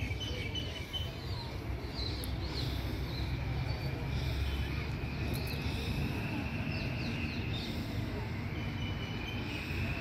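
Outdoor ambience of birds chirping in short, scattered calls, joined a few seconds in by a steady high insect drone, over a constant low rumble.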